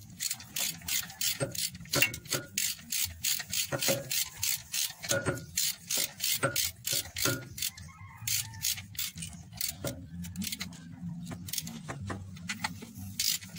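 Ratchet wrench clicking in quick back-and-forth strokes while a bolt on a diesel engine's timing gears is turned, several clicks a second with short pauses near the middle and again later.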